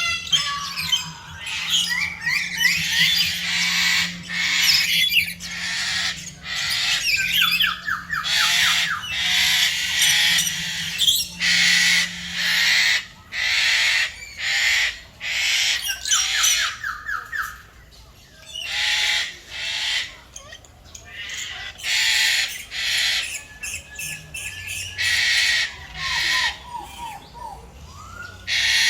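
Birds squawking: loud, harsh calls repeated over and over, with a few short, fast rattling call series, around seven seconds in, near the middle and near the end.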